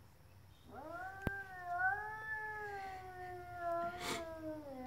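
A cat yowling in a territorial standoff with another cat through a glass door. It gives one long, wavering caterwaul that starts about a second in and slowly drops in pitch. A sharp click comes shortly after the yowl begins, and a short noisy burst comes near the end.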